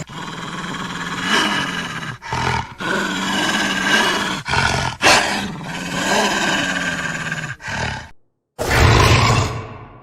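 Wolf growling and snarling in a run of rough, wavering growls, broken by brief pauses; it cuts to silence a little after eight seconds in, then one more loud growl fades away.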